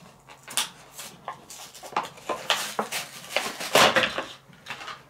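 Plastic blister packaging being pulled open and handled: a run of irregular crinkles and sharp crackling clicks, loudest a little under four seconds in.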